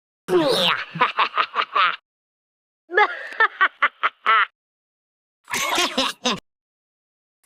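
The cartoon character Peridot laughing in three separate bursts of rapid, pulsing giggles. Each clip cuts off abruptly, with dead silence between them.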